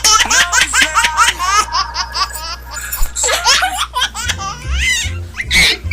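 High-pitched laughter like a baby's, in quick repeated giggles; music with a low beat comes in about four seconds in.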